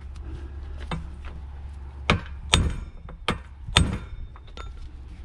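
Brass hammer striking a brass punch to drive a new U-joint bearing cap into a Toyota truck driveshaft yoke: about five sharp metallic taps at uneven intervals, the loudest a little past the middle, over a low steady hum.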